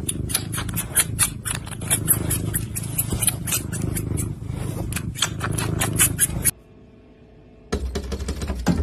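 Tabby kitten chewing and sucking on a finger, making fast, irregular wet clicking and smacking mouth sounds over a steady low rumble. Near the end, a few clicks from a hand working the latch of a small wall hatch.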